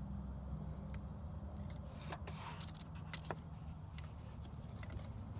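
Electrical tape being pulled off the roll and handled: a short noisy rip about two seconds in, then a few sharp clicks just after three seconds, over a steady low hum.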